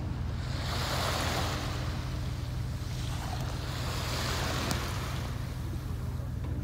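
A boat's engine humming steadily, under wind and rushing water that swell and fade every two to three seconds.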